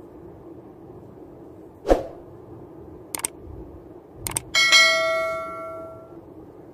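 Subscribe-button animation sound effect: a single thump, then a quick double mouse click and a few more clicks, then a bell ding for the notification bell that rings out for about a second and a half.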